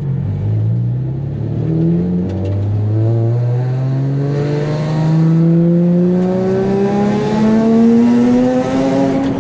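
Single-turbo Nissan 350Z's VQ35HR V6, which has an exhaust leak, accelerating hard from inside the cabin: revs climb, a gear shift about two seconds in, then a long steady pull higher through the next gear until lifting off at the end. A turbo hiss swells in over the engine midway and again near the end.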